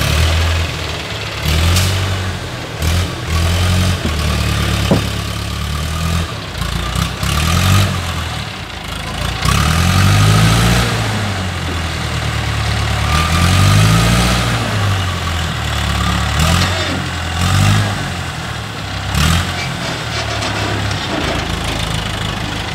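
Diesel engine of an ACE mobile crane running, its speed rising and falling again and again as the hydraulics lift and swing a heavy log onto a lorry.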